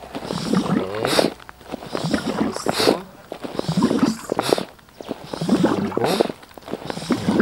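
The foot pump on a NEMO Helio Pressure Shower's water tank being stepped on again and again, pumping air in to pressurize the tank. There are about four strokes, one every second and a half or so. Each stroke is a rising squeaky push of air ending in a short sharp puff.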